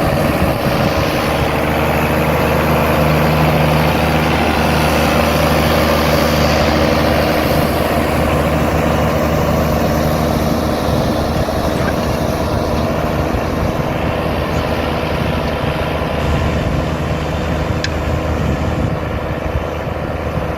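Ford TW25 tractor's six-cylinder diesel engine running steadily under load while pulling a four-furrow reversible plough, with a rattle. It grows slightly louder over the first few seconds, then eases a little towards the end.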